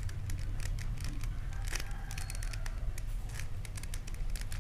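A 3x3 plastic Rubik's cube being turned through a sequence of moves, its layers giving a quick run of short, irregular plastic clicks.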